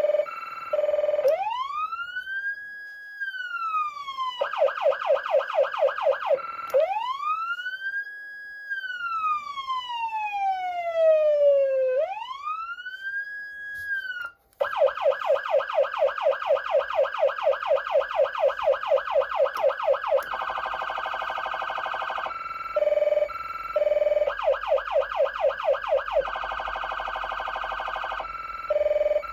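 Federal Signal Unitrol electronic siren amplifier sounding through its siren speaker, changing between tones: fast repeated yelp sweeps, manual wail glides that rise to a held top pitch and fall slowly, and later very fast warbling and chirping two-tone patterns.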